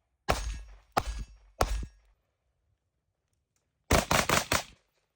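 Gunshots: three single shots about two-thirds of a second apart, then a quick string of about five shots near the end.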